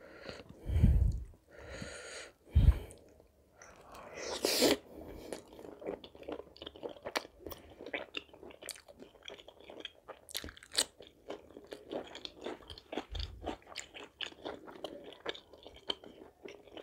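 Close-miked chewing of butter chicken and butter naan: a steady stream of small wet mouth clicks and smacks. Two heavy thumps come in the first three seconds, and a short louder noise about four and a half seconds in.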